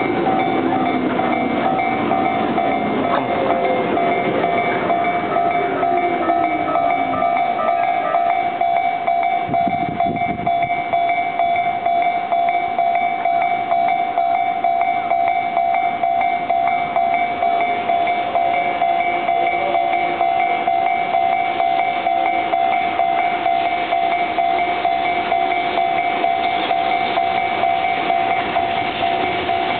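Japanese railway level crossing warning bell ringing on a steady tone while trains run past on the line, with rail clatter. In the first several seconds a train's motor whine shifts in pitch.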